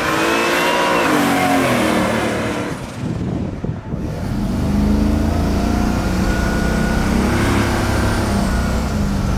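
Twin-turbocharged LS V8 of a 1970 Chevelle SS accelerating past, its pitch rising and then falling as it goes by. After a cut about four seconds in, the engine runs on steadily, deep and low.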